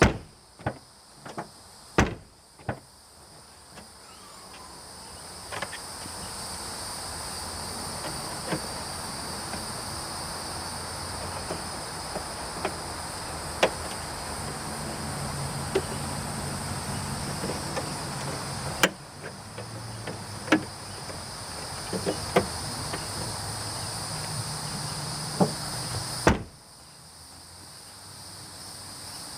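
Rear liftgate of a 2005 Pontiac Vibe opened and slammed shut repeatedly, with sharp latch clunks near the start, about 2 seconds in, about 19 seconds in and again near the end, plus small knocks and handling noises in between. Crickets chirp steadily throughout.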